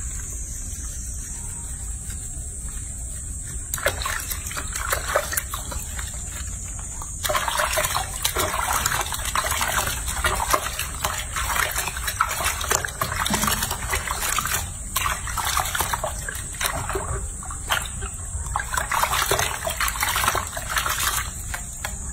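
Water splashing and sloshing in a sink basin as hands scrub and rinse a baby macaque. The splashing starts about four seconds in and becomes busy and continuous from about seven seconds, with many small wet slaps.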